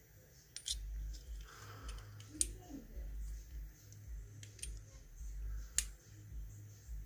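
Small metal parts of a dimple lock cylinder clicking and clinking as it is taken apart by hand: about five sharp metallic ticks over low handling bumps.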